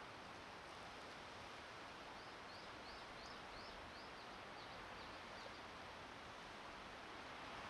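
A steady hiss of wind noise, with a bird calling a quick run of about ten short high notes, the first ones rising and the later ones falling, from a couple of seconds in.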